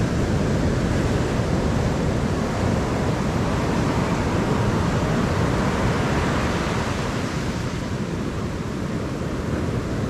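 Ocean surf washing on the shore, a steady rushing noise, with wind buffeting the microphone.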